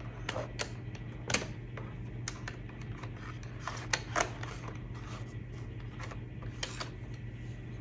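Wooden coloured pencils clicking and rattling against one another and their plastic case as one is put back and another picked out: a handful of irregular light clicks, the sharpest about a second and a half in and around four seconds in, over a steady low hum.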